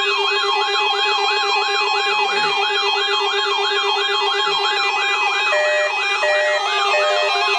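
Electronic siren: a rapid rising wail repeating about three times a second over a steady low tone, joined by a regular on-off beeping about five and a half seconds in.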